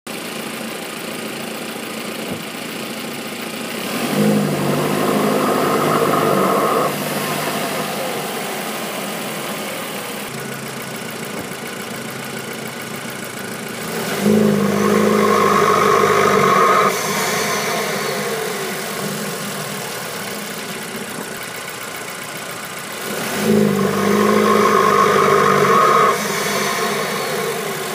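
Audi A3 2.0T FSI (BPY) turbocharged four-cylinder idling, then held up on launch control three times for about three seconds each, a steady howl riding over the engine note each time before it falls back to idle. The howl comes only under load with the throttle open; the owner says it sounds different from turbo spool and does not know its cause.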